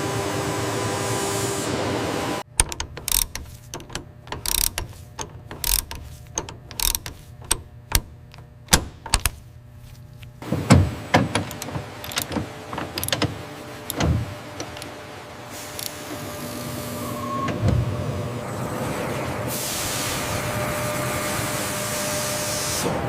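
Machine-shop noise: a steady machinery hum, then about two and a half seconds in a run of sharp, irregular metallic clicks and knocks from tools and parts being handled, giving way to a steady hiss that swells near the end.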